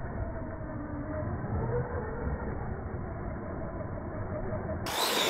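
Faint whine of an electric RC truggy's motor, shifting up and down in pitch with the throttle, over a muffled low rumble. Near the end the sound cuts to a closer, louder, higher motor whine with hiss.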